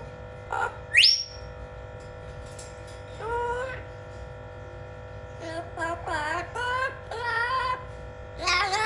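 Blue-fronted Amazon parrot calling: a sharp rising whistle about a second in, then a series of drawn-out, wavering calls, the loudest starting near the end.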